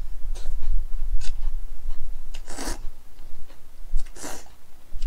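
A person slurping cold naengmyeon noodles from a bowl of broth, with two longer slurps a little past halfway and near the end, and wet chewing and small mouth clicks in between.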